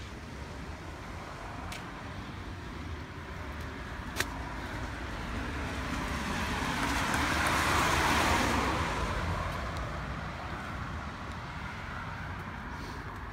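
A car passes by on the street, its road noise swelling to a peak about eight seconds in and then fading away. A steady low rumble runs underneath, with a single sharp click about four seconds in.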